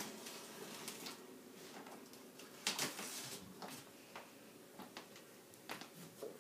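Faint handling noises: light clicks and scrapes, with a louder rustle about three seconds in.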